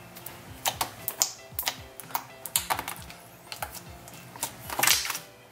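Blue slime pressed and poked with fingers, giving irregular wet clicks and pops and a longer squish about five seconds in. Background music plays underneath.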